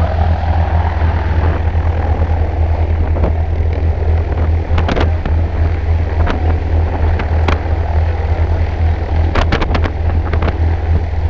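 Single-engine propeller plane's engine idling on the ground with its propeller turning, a steady deep drone, with a few sharp knocks about halfway through and again near the end.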